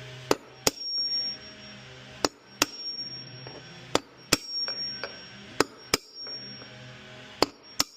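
Hammer striking a socket used as a drift to knock an old drum bearing out of a Samsung front-load washer's tub. The strikes come in pairs, ten in all, some leaving a brief high metallic ring, over a faint steady hum.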